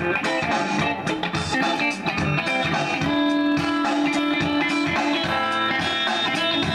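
Electric bass guitar being plucked in a continuous jam, with guitar music sounding along with it.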